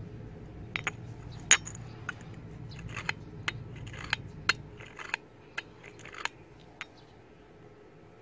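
Glass bottle clinking and knocking against a steel anvil block: about fifteen sharp, irregular clinks, the loudest about one and a half seconds in, thinning out after about five seconds.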